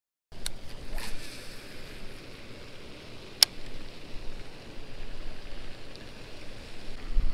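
Steady rushing outdoor noise with a single sharp click about three and a half seconds in.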